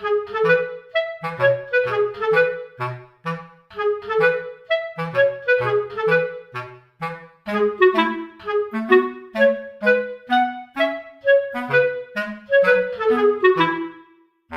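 Background music: a bouncy tune with a clarinet-like woodwind melody in short notes over a regular bass line, cutting off suddenly near the end.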